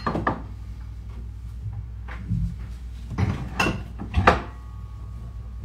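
Two sharp knocks from an overhead kitchen cupboard as a glass bottle is put away. From about two seconds in come four short scraping strokes, about half a second apart, of a stainless box grater on a block of cheese.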